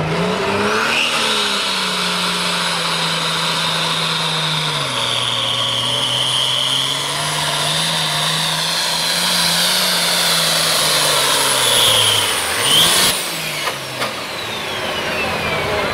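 Turbocharged International diesel pulling tractor at full throttle, hauling a weight-transfer sled. The engine note climbs at the launch, dips about a third of the way through and climbs back, then drops away near the end as the throttle comes off, leaving a high turbo whine falling in pitch.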